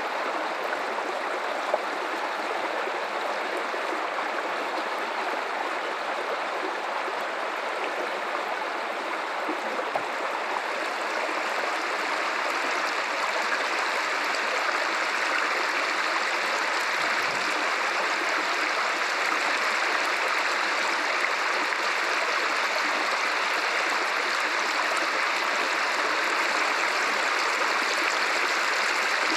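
River water flowing steadily, a continuous rushing and gurgling that grows slightly louder about a dozen seconds in.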